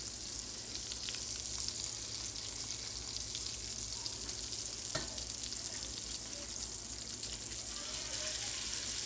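Salmon frying in hot oil in a pan: a steady sizzle with scattered small crackles, and one sharp click about five seconds in.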